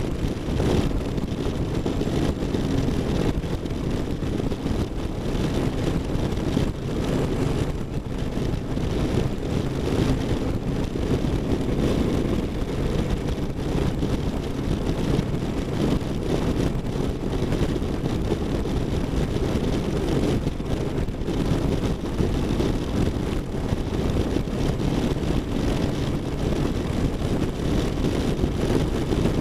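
Cruiser motorcycle's V-twin engine running steadily at highway cruising speed, mixed with wind rushing over the bike-mounted microphone.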